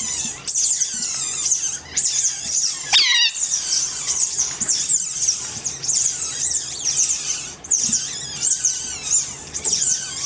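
A group of Asian small-clawed otters, week-old pups among them, giving a dense, unbroken chorus of rapid high-pitched squeaking chirps, many voices overlapping. About three seconds in, one louder call falls sharply in pitch.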